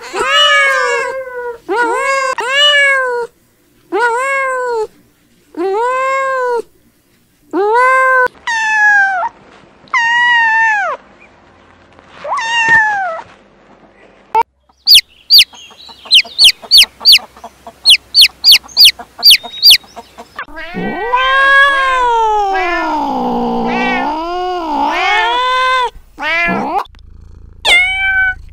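Kittens meowing: a string of short mews, rising and falling, about one a second. Then a burst of rapid, very shrill squeaks, and then one long wavering meow lasting several seconds. A few short mews come near the end.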